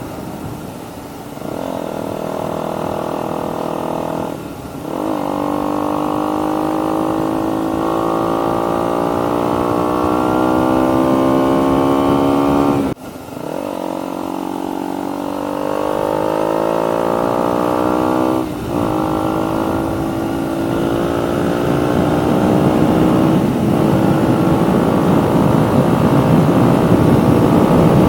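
2019 KTM Duke 125's single-cylinder engine, breathing through a Radical Racing GP carbon full exhaust system, pulling hard under acceleration with rising pitch. The sound dips briefly three times, about four, thirteen and eighteen seconds in, as on upshifts, then climbs again. Rushing wind grows toward the end.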